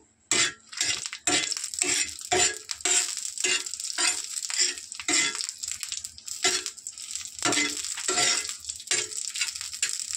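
Dried red chillies sizzling in hot mustard oil on a tawa, with a metal spatula scraping and knocking on the griddle about two to three times a second as they are turned and pressed, pausing briefly around the middle.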